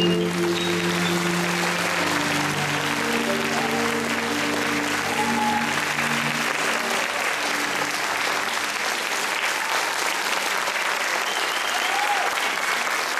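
Audience applauding loudly as the dance music's last held notes die away about halfway through.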